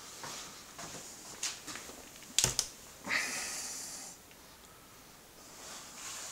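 A cupboard door's catch clicks twice in quick succession about two and a half seconds in as the door is pulled open, followed by breathing close to the microphone.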